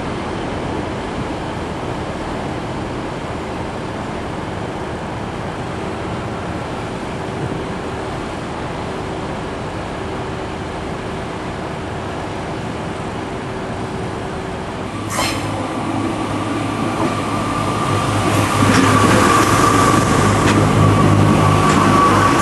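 Diesel multiple-unit trains in a station: a steady low rumble of diesel engines with a faint held tone. About fifteen seconds in it changes abruptly to a closer, louder train, a strong engine hum with a steady high whine over it.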